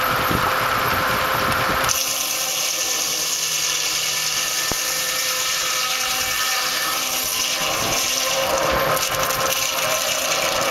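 A large circular sawmill blade cutting through a log. About two seconds in, the low running of the machinery gives way to a high, steady hiss and whine that holds through the cut.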